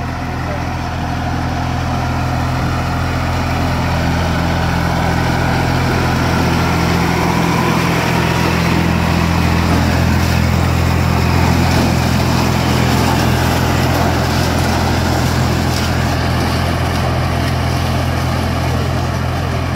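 IMT 542 tractor's diesel engine running steadily under load, driving a SIP Tornado 40 pull-type harvester as it works through standing maize. It grows a little louder over the first few seconds, then holds steady.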